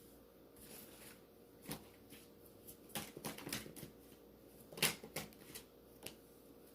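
Tarot cards being handled and drawn from the deck: quiet papery flicks, slides and taps of cards, busiest around the middle, with a sharper snap of a card a little before the end.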